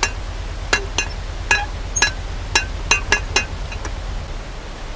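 Lock paddle gear being wound up with a windlass: the iron safety pawl clacks over the ratchet teeth, about ten sharp ringing clinks at an uneven pace that stop after about three and a half seconds, over a steady low rush.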